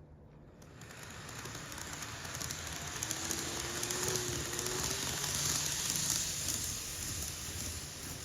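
Electric train running past: a rushing noise of wheels on rail that rises from about a second in and stays loud, with a faint hum partway through.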